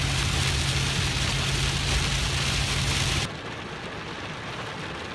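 Heavy rain falling on a truck's cab while driving, over a steady engine hum and road rumble. About three seconds in it cuts abruptly to a quieter, even hiss of pouring rain with no engine.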